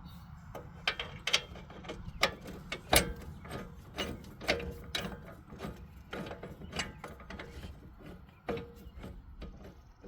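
Hand socket ratchet clicking in irregular runs, one to three clicks a second, as the rear hub mounting bolts are run in snug.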